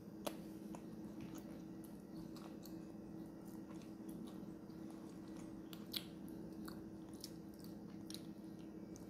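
A milk-chocolate egg shell being snapped into pieces and small plastic and foil bits handled: scattered faint clicks and crackles, with two sharper clicks about a third of a second in and near six seconds. A steady low hum runs underneath.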